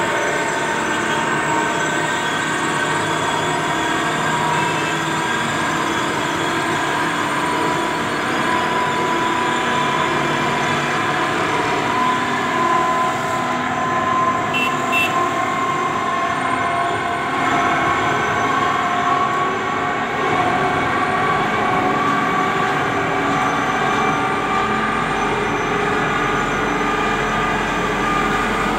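Steady running noise of a moving vehicle crossing a bridge: a continuous rumble with several long tones that drift slowly in pitch.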